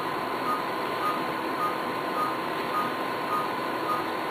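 Patient monitor beeping once per heartbeat: short, evenly spaced high beeps a little under two a second, over a steady high tone and equipment hum.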